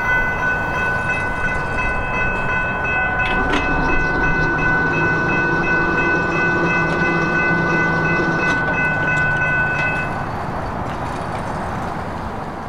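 Railroad crossing warning bell ringing steadily over a broad rumble, then stopping about ten seconds in as the crossing clears. A low hum runs through the middle while the gate mechanisms lift the arms.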